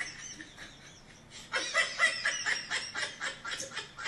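A man laughing hard. A first burst dies down, then about a second and a half in it breaks out again as a quick run of high-pitched laughs, several a second.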